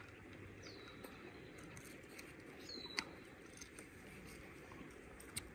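A bird calling a short, high, down-slurred chirp twice, about two seconds apart, over a low steady background hiss. Scattered faint clicks come through, with a sharper click about three seconds in and another near the end.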